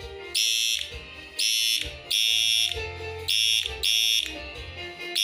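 Homemade high-power inverter under load driving halogen lamps, giving a loud high-pitched electronic whine that pulses on and off about six times, each pulse roughly half a second long, over a low steady hum.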